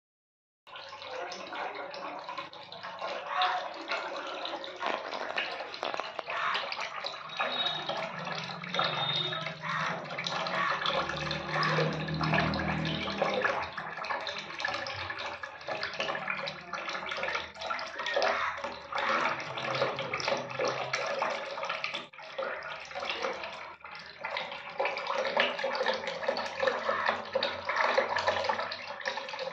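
Water running and splashing in a steel sink.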